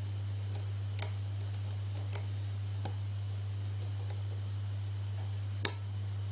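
Sparse small metal clicks and ticks of a hook pick working the pin stack of a 5-pin SC1 cylinder, with one louder click near the end, over a steady low hum.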